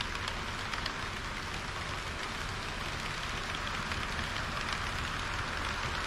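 HO-scale model trains, a KiHa 40-series railcar and an EH200 electric locomotive with tank wagons, running on sectional track: a steady rolling rattle of wheels and motors with a few light clicks, growing a little louder near the end as the locomotive passes close.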